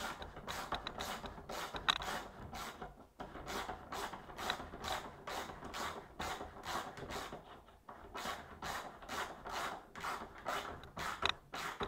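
Socket ratchet clicking in quick, steady runs, about four strokes a second with a couple of short pauses, as a mounting bolt is snugged down through a long extension.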